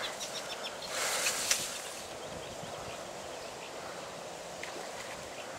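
Steady outdoor rustle of wind through reeds and bankside trees, with faint bird chirps in the first second and a half and a sharp click about a second and a half in.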